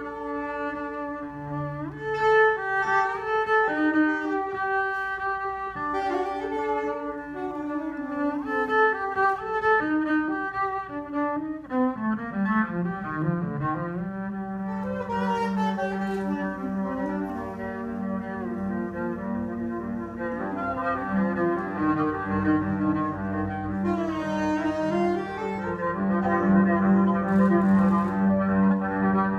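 Bowed cello and saxophone improvising together. About twelve seconds in, a line slides down into a sustained low note that is held under the changing higher notes.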